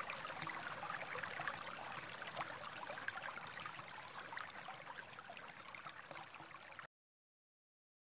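Shallow stream of water trickling, slowly fading, then cutting off abruptly near the end.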